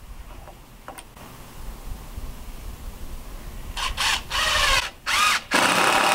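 Electric drill running in short bursts, the motor whining up and down in pitch as the trigger is squeezed, then running steadily near the end, after a few quiet seconds.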